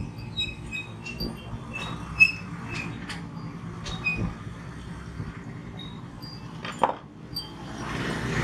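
Phillips screwdriver clicking and scraping against the small screws of a motorcycle ignition switch assembly as they are worked loose, a sharp click about two seconds in being the loudest. Short high chirps come and go throughout, over a steady low hum.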